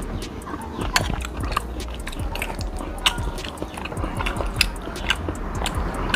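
Close-up eating sounds of a person having chicken soup (soto ayam): chewing and mouth noises at the spoon, with frequent short clicks of a metal spoon and fork against the bowl.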